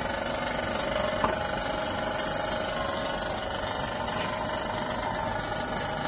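Refrigeration vacuum pump running steadily while it evacuates a refrigerator's sealed system through the manifold hoses, with a light tap about a second in.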